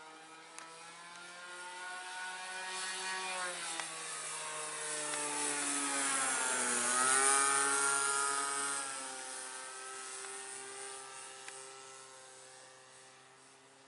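O.S. GT15 single-cylinder two-stroke gasoline engine and 14x8 wood propeller on a Hangar 9 Ultra Stick RC airplane, running in flight as the plane passes overhead. It grows louder toward the middle, where its pitch dips and swings, then fades away.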